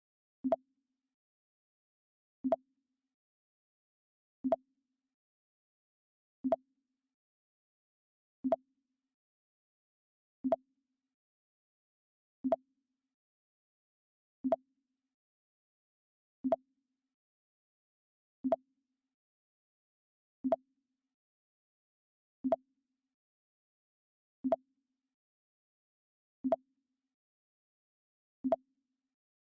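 The Mac OS X 'Pong' alert sound, played over and over: a short pitched blip about every two seconds, fifteen times.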